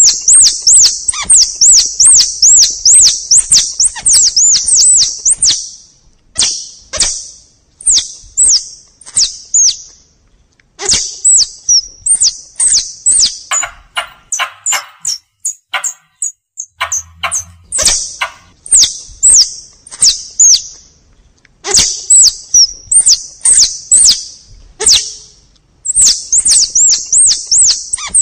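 Forest squirrel (tupai) calls used as a hunting lure: rapid strings of high, sweeping chirps in bursts of a few seconds, with short pauses between bursts.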